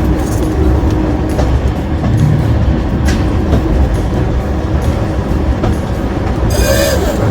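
Volk's Electric Railway car running along its narrow-gauge seafront track, heard on board as a steady low rumble with wheel clatter. A brief higher-pitched sound comes near the end.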